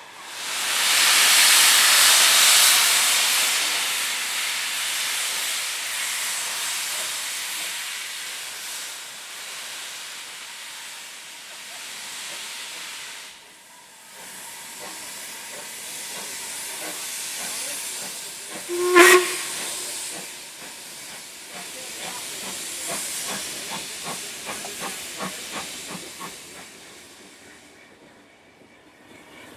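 Steam locomotive LMS Jubilee 45596 Bahamas letting off steam. A loud hiss starts at once and slowly fades, breaks off briefly about halfway through, then picks up again. About two thirds of the way in there is one short, sharp, pitched sound, followed by a few seconds of rapid, regular knocking.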